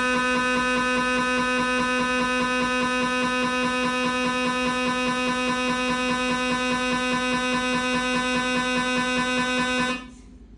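Siemens MAGNETOM Lumina 3 T MRI scanner's gradient coils running a T1 VIBE Dixon abdominal sequence: a loud, steady buzzing drone with a fast, even pulsing flutter. It cuts off suddenly near the end as the acquisition stops, leaving a much quieter background.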